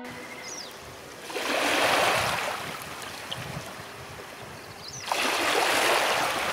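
Small waves washing onto a pebble shore: two swells of splashing water about four seconds apart, with a quieter wash between them and a couple of faint, short, high chirps.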